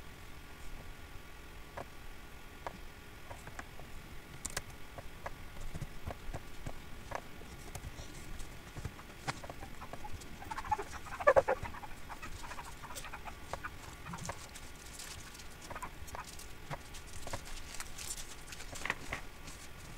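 Computer mouse clicking at irregular intervals over a faint room background. About halfway through, a brief squeaky chirping sound is the loudest thing.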